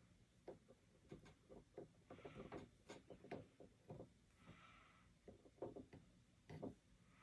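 Near silence with faint, scattered light clicks and taps, and a few soft brief hisses, as the soldering iron and solder work at the connector.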